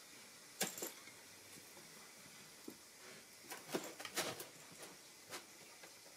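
Faint, scattered clicks and taps from a cat's paws on a plastic storage-bin lid and from the toy bell mouse it carries in its mouth, with a quick cluster of them about midway.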